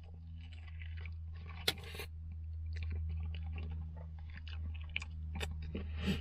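A man biting into and chewing a mouthful of meat and egg breakfast pie: a string of short, irregular mouth clicks and chewing noises, with a sharper one a little under two seconds in, over a steady low hum.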